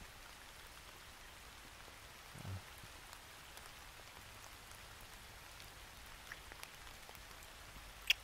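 Soft, steady rain falling, with a single sharp kiss sound near the end.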